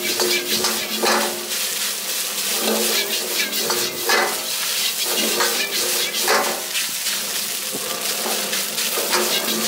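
Metal ladle and spatula scraping and clanking against a wok as fried rice is tossed and stirred, over a steady hiss of the rice sizzling.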